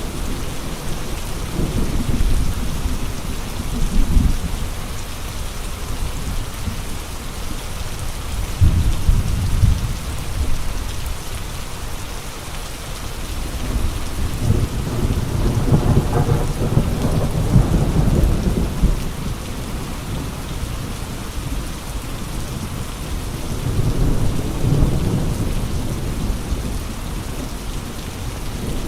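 Steady heavy rain with gusty wind, and deep rumbling swells that build and fade four times, the longest about halfway through.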